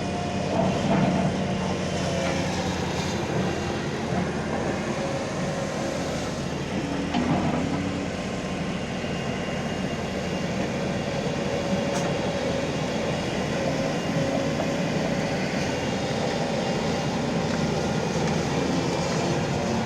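Engine of a JCB excavator running steadily.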